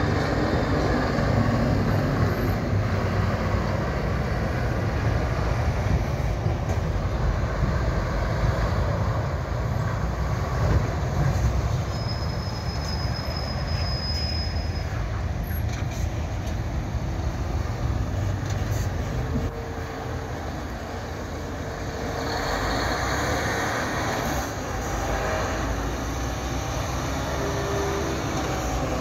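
Road traffic passing close by: tractors towing trailers, a bus, cars and an articulated lorry, a continuous rumble of engines and tyre noise. A faint high whine sounds for a few seconds about twelve seconds in.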